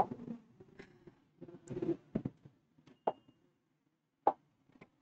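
A few sharp, isolated taps on an interactive whiteboard's touch screen as its toolbar and pen settings are worked, spaced about a second apart, with faint rustling of movement between them.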